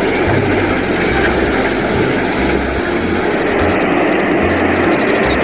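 Tipper truck's engine running while gravel pours from its raised bed in a steady rush of sliding stones.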